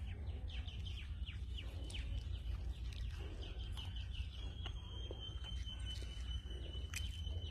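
Outdoor rural ambience: birds chirping in short repeated calls over a steady low rumble, with a thin high tone held steady through the second half.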